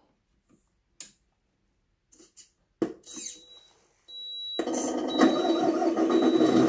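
A few clicks, then high electronic beeping from about three seconds in, then the G.T.Power sound module's simulated truck engine starting up and running loudly through its small speaker from about four and a half seconds in.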